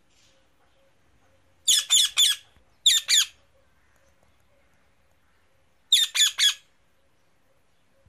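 Indian ringneck parakeet giving short, sharp squawking calls in three quick groups: three calls, then two, then three more a few seconds later.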